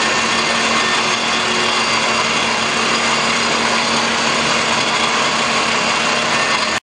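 A small electric motor or power tool running steadily: an even whir with a strong hiss and one steady low hum, no change in speed.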